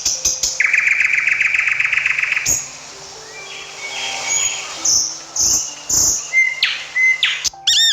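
Bird calls: a rapid trill lasting about two seconds, then scattered short chirps and whistles.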